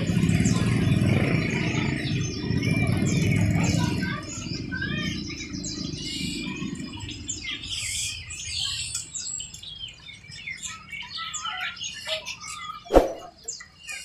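Many caged birds chirping and twittering in quick, overlapping calls. A low engine rumble underneath fades out about halfway through, and a single sharp knock stands out near the end.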